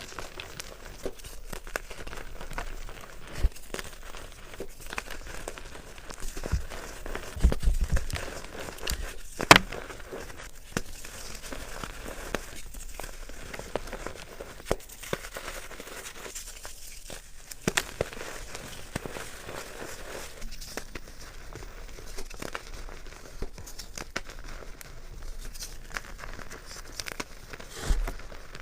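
A soft material being crushed, giving a continuous irregular crinkling, crackling texture with scattered sharper snaps. The loudest snaps come about eight to ten seconds in.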